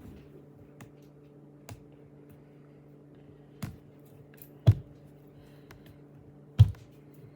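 A sealed plastic slime tub being picked and pried at by hand: a few scattered small clicks, then two louder knocks of plastic, one about two thirds of the way through and one near the end.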